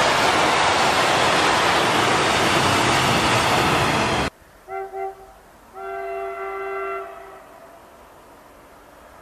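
Freight train of covered hopper wagons rolling past with a steady loud rumble, which cuts off abruptly about four seconds in. Then a train horn sounds two short toots and one longer blast.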